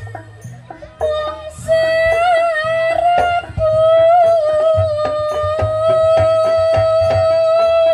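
Jaranan Ponoragan accompaniment music: a high melody line held for long notes with a slight waver, over regular drum strokes and a low gong-like hum. The music drops back briefly about half a second in, then the melody comes in again and holds one long note through the second half.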